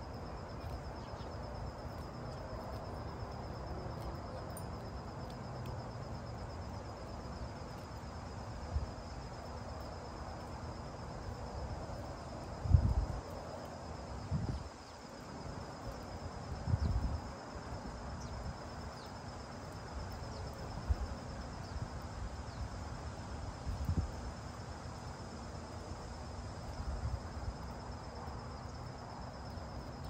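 Steady high-pitched insect trill over a soft outdoor background hiss, with several brief low rumbles around the middle.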